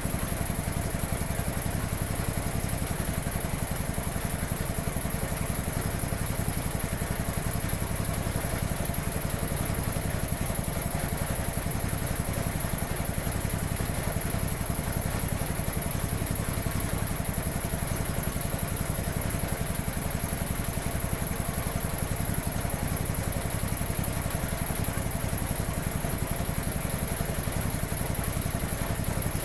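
1950s Quincy 320 belt-driven piston air compressor running steadily at about 700 rpm, its 3 hp electric motor humming under a fast, even pumping clatter.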